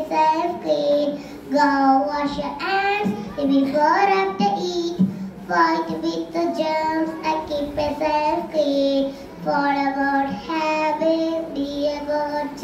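A young girl singing solo into a microphone, unaccompanied, with long held notes and short breaks for breath.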